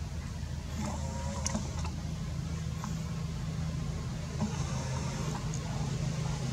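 A steady low hum of a running engine, with a few faint ticks over it.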